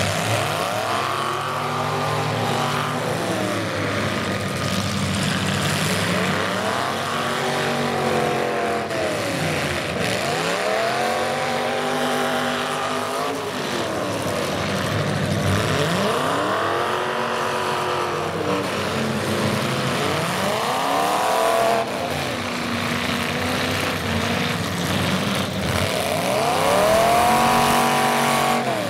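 Demolition derby car engines revving hard, over and over, each rev climbing in pitch and falling back every few seconds, with several engines overlapping.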